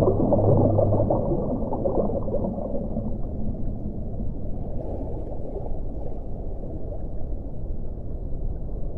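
Underwater ocean ambience: a dense, low rushing wash. A low steady hum runs under it for the first second or so and then stops.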